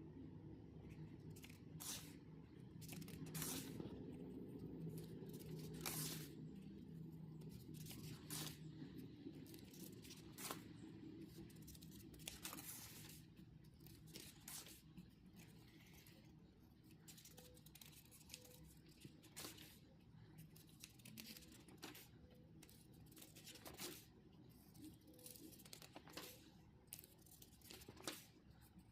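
Faint, scattered clicks and rustles of paper being handled, over a low steady hum.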